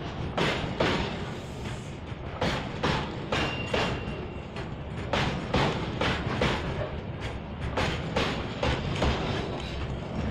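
Wheels of a passing double-stack container freight train clattering over the rail joints, sharp clicks arriving in close pairs over a steady rumble. A faint, thin high tone sounds briefly about three seconds in.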